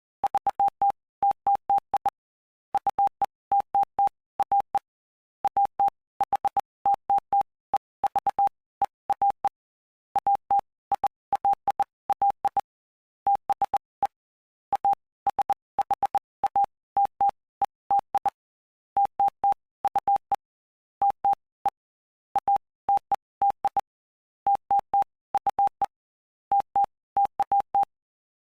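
Morse code: a single steady mid-pitched tone keyed on and off in short dots and longer dashes, with brief gaps between letters and longer pauses between words. It spells out the text of Mark chapter 8 from the Bible.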